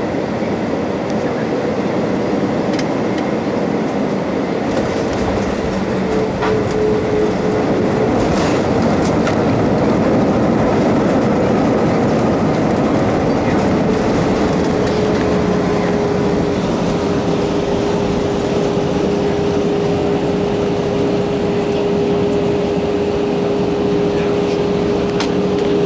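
Airbus A318 cabin noise while taxiing: the jet engines at low taxi power give a steady rush with a steady whine that sinks slightly in pitch a few seconds in and then holds. A few faint knocks come through as the aircraft rolls over the pavement.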